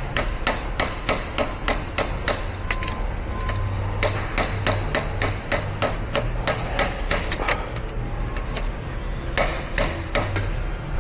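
Hand hammer tapping metal parts of a forklift hydraulic cylinder during a rebuild. The blows come fast, about four a second, in runs with two short pauses.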